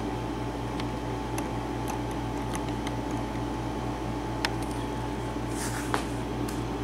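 Small room air conditioner running steadily, a hum with a slight regular pulse, with a few faint light clicks over it.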